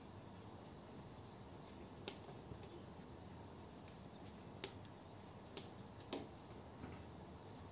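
A few scattered, light plastic clicks of a pen-spinning mod pen knocking against the fingers during spin tricks, over faint room hiss. The sharpest is a quick double click about six seconds in.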